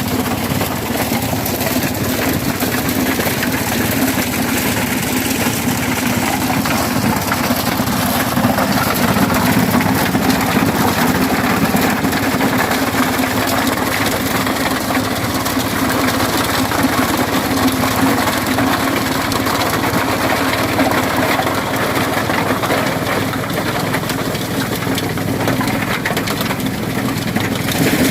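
Corn threshing machine running steadily under its engine, with a constant hum and a dense mechanical clatter.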